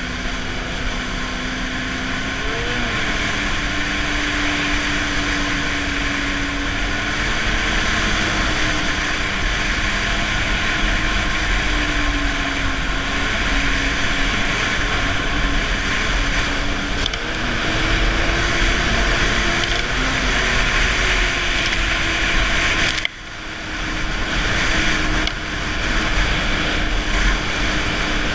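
Snowmobile engine running steadily at trail speed under the rider, with a wide rush of wind and track noise; the engine note drifts up and down a little with the throttle. About three-quarters of the way through the sound drops sharply for a moment, then builds back up.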